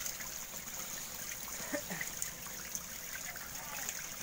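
Dense crowd of deshi magur (walking catfish) writhing in shallow water, making a continuous trickling with many small splashes.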